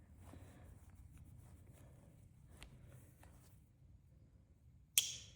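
Faint rubbing and handling sounds from polishing a pocketknife blade by hand, with one sharp click about five seconds in.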